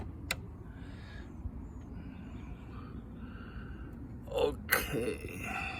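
A man breathing hard and grunting with effort while forcing a stuck license plate screw with a screwdriver and locking pliers. There is a single sharp click just after the start, and a louder strained grunt about four and a half seconds in, over a steady low rumble.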